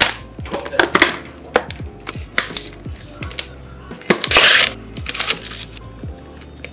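Ice cubes clinking and rattling in a sealed plastic cup of convenience-store ice as it is shaken, then a short loud rip about four seconds in as the film lid is peeled off. Background music plays under it.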